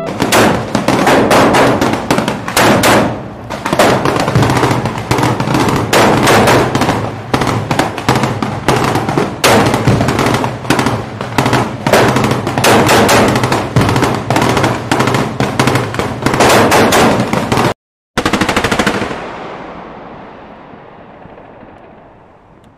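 Sustained automatic gunfire, rapid overlapping shots for about seventeen seconds. After a brief break there is one last loud blast whose echo dies away slowly over several seconds.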